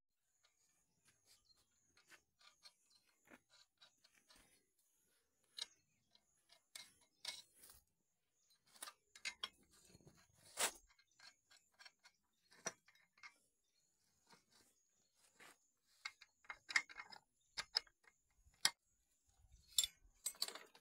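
Irregular metal clicks and clinks of hand tools, bolts and brackets as disc plow parts are fitted onto a steel plow frame, with a few sharper knocks about halfway through and in the last few seconds.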